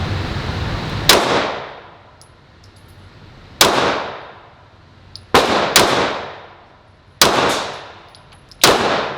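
Six handgun shots fired one at a time at an uneven pace, the fourth and fifth close together, each ringing on in a long echo typical of an indoor range. A steady hiss runs before the first shot.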